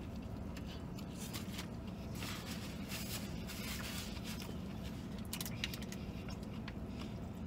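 A man chewing a mouthful of spicy chicken sandwich and blowing out breaths against the heat, about two to four seconds in, with a few faint rustles and clicks of paper wrapper, over a steady low hum of a vehicle cabin.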